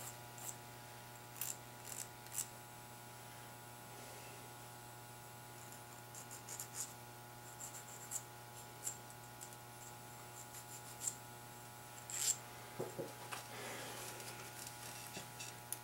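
Faint, scattered light clicks and scrapes of piston rings and a small ring filer being handled by hand, over a steady electrical hum.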